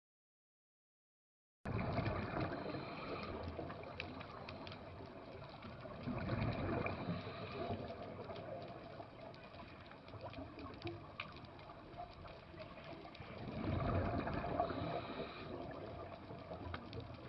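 Water sound effect: a continuous watery rush that starts abruptly after a short silence, swells twice, and cuts off abruptly.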